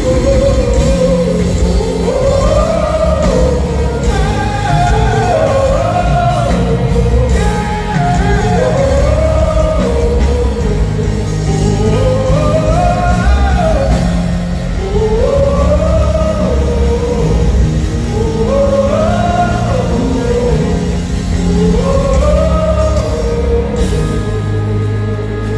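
Gospel worship music: a singer repeats a short rising-and-falling phrase about every two seconds over a band with heavy bass, in a large hall.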